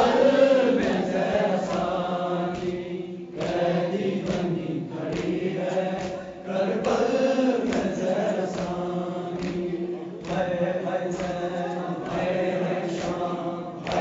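A male voice chanting an Urdu nauha, a Muharram lament, without instruments. It comes in drawn-out phrases of three to four seconds, with short breaks for breath between them.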